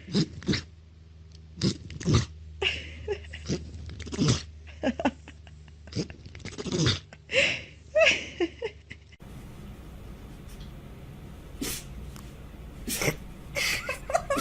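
Pets sneezing: many short, sharp sneezes in quick succession, with a different animal's sneezes after a change of background about nine seconds in.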